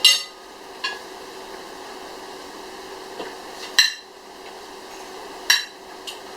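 Cutlery clinking against dinner plates during a meal: a handful of sharp, separate clinks at irregular intervals, the loudest at the start, about four seconds in, and about five and a half seconds in, over a faint steady hum.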